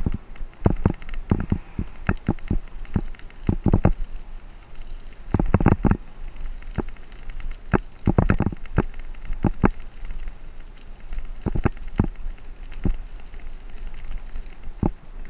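A Caloi 10 road bike rolling over a rough dirt shoulder, giving irregular sharp knocks and rattles as it jolts over bumps and loose stones, some single and some in quick clusters. Under them runs a steady low rumble of wind on the helmet-mounted microphone.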